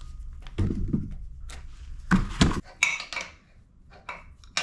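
Metal fittings and tools being handled during assembly: a series of clinks and knocks, the loudest two coming close together about two seconds in.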